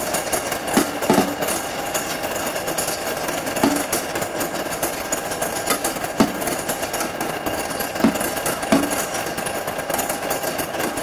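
Train running on the track: a steady rattling clatter, with a heavier knock every second or two from the wheels.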